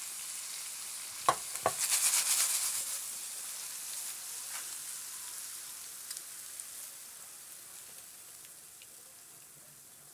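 Sliced bell peppers sizzling in oil in a nonstick pan. Two sharp knocks come a little over a second in, then a brief louder burst of sizzle as the peppers are stirred, and the sizzle fades gradually.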